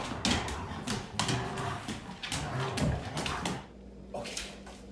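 A dog playing tug with a person: quick scuffs and clicks of paws and shoes on the hard floor, with short low dog vocalisations in between.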